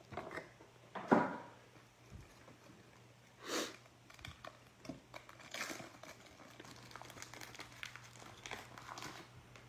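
Foil wrapper of a Panini Prizm basketball card pack crinkling and tearing as gloved hands open it. The crackling grows denser in the second half.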